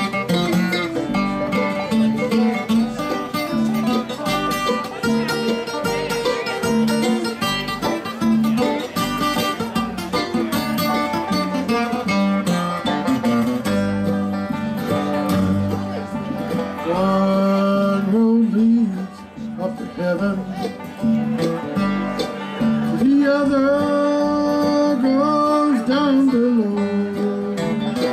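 Live bluegrass band playing: upright bass, acoustic guitar and five-string banjo with a lead line that slides between notes, once about two-thirds through and again near the end.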